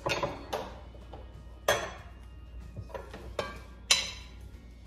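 A spoon clinking and scraping against a Club cookware pot while stirring sliced kielbasa, about five separate clinks, each with a short ringing after it.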